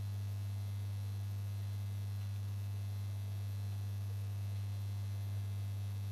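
Steady low electrical hum, mains hum picked up in the recording: one constant low tone with a fainter one an octave above.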